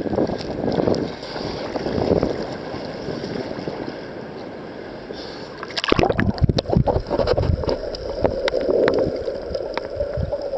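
Ocean surf sloshing and splashing against a waterproof camera at the surface; about six seconds in the camera goes under, and the sound turns to muffled underwater rushing with many small clicks and knocks.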